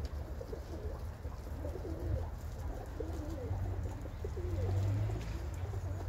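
Domestic pigeons cooing repeatedly, soft wavering calls from a flock, over a steady low rumble that swells slightly past the middle.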